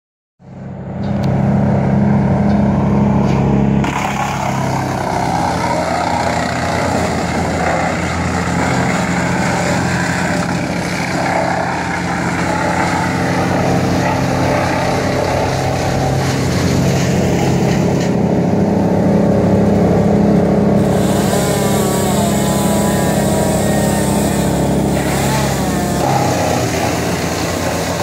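Heavy engine of tree-crew machinery running steadily. In the last few seconds a higher engine note rises and falls over it.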